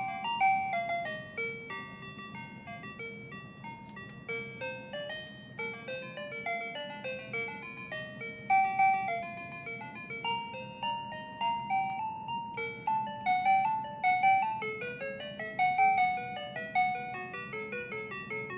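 A simple electronic melody of short beeping notes, in the manner of a toy's chip jingle, played as a continuous tune.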